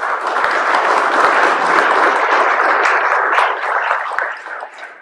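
A crowd applauding, many hands clapping together, dying away near the end.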